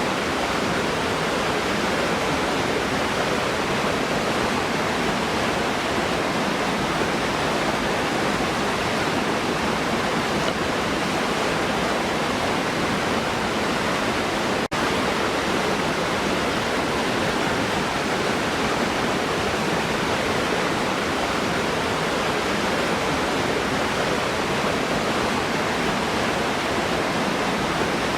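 Waterfall: a steady, dense rush of falling water. There is a momentary dropout about halfway through.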